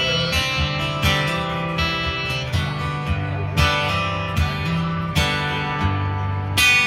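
Acoustic guitar played solo, strummed chords closing out a song after the last sung line. Strings are struck every second or so, and the last strum near the end is the loudest.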